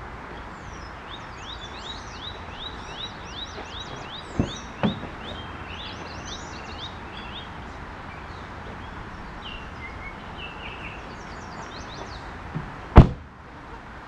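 River water flowing steadily, with a songbird singing rapid runs of short down-slurred notes through the first half and again briefly later. Two sharp knocks come about half a second apart near the middle, and one louder knock near the end.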